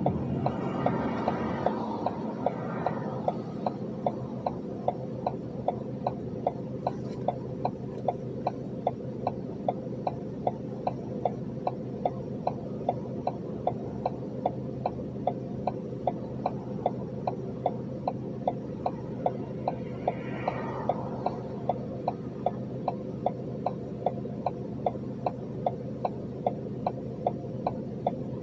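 A vehicle's turn-signal relay ticking steadily, a couple of clicks a second, over the low steady hum of an idling engine heard from the cab.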